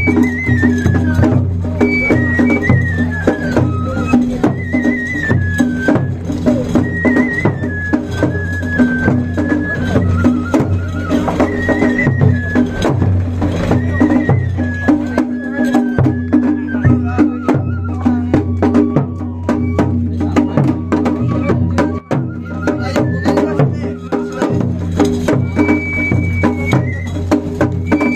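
Japanese festival hayashi music played on a float: a high flute melody that steps up and down in held notes over fast, continuous taiko drum strokes.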